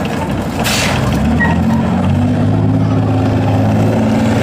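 Vehicle engine running with a steady low drone, its pitch shifting about two seconds in. A short hiss comes about half a second in.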